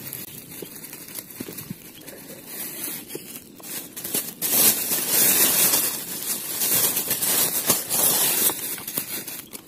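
Close rustling and rubbing of clothing and a plastic bag against the microphone as a landed tilapia is handled and bagged. It gets much louder about four seconds in and stays loud until shortly before the end.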